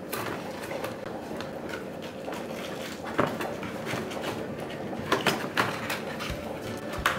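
A hand rummaging inside a cardboard box, making rustles and light irregular knocks and taps of cardboard packaging, with a few sharper taps about three seconds in, a quick cluster around five seconds in, and another near the end.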